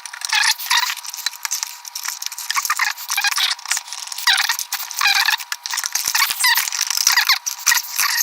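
Rattling, clicking and scraping of a cheap projector's parts being handled and pried apart during disassembly. It sounds thin and high-pitched, with short chirpy squeaks.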